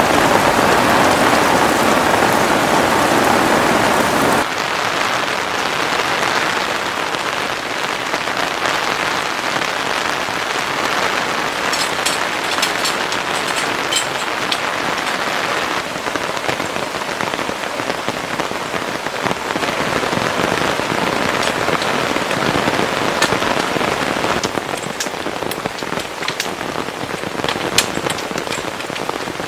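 Heavy rain pouring down in a steady hiss, with scattered sharper drop ticks; louder for the first few seconds, then a little quieter.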